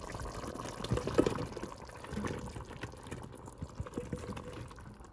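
Chunks of zucchini tipped from a metal bowl, splashing and plopping into a pot of beef in broth, with a run of irregular knocks and splashes, the loudest about a second in.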